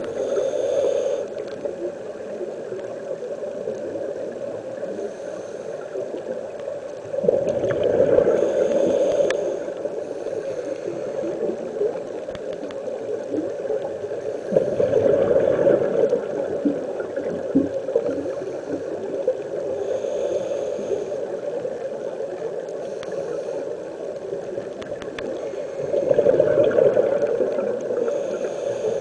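Scuba diver breathing through a regulator underwater: a burst of exhaled bubbles every six or seven seconds, with the short hiss of an inhalation between them, over a steady bubbling underwater background.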